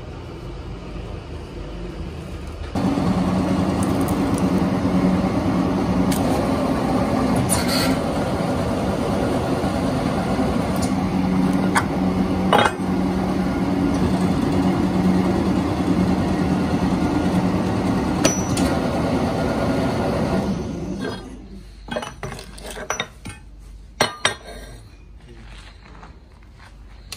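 A steady machine hum starts abruptly about three seconds in and stops about twenty seconds in, with scattered light clinks over it; after it, a few knocks.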